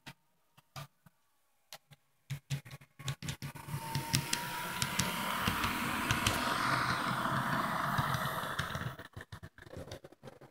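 HO-scale model diesel locomotive running on the track: the steady whir of its small electric motor and the rattle of its wheels on the rails. It builds up out of scattered clicks a few seconds in and fades back into clicks near the end.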